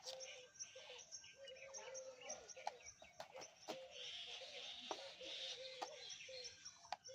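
Faint bird calls: a low wavering call repeating over and over, with many quick high chirps and a few sharp clicks.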